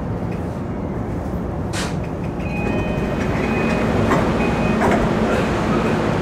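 JR East Nambu Line electric commuter train running on the rails: a steady rumble of wheels and running gear. About two and a half seconds in, a high steady tone joins the rumble and the noise grows louder.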